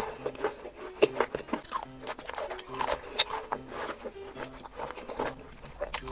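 Close-miked chocolate eating: irregular crisp snaps, crunches and mouth clicks as chocolate is bitten and chewed, over soft background music with a simple melody.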